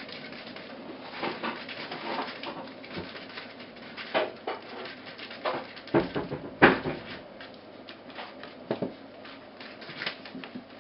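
Four-week-old Border terrier puppies moving about a whelping box: irregular scratching and shuffling of paws, with scattered bumps, the loudest a little past halfway, and a few short whimpers.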